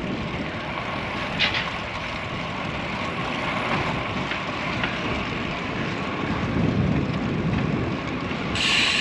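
Steady rushing wind and road noise from a road bike rolling along a concrete street. Near the end the hiss turns brighter.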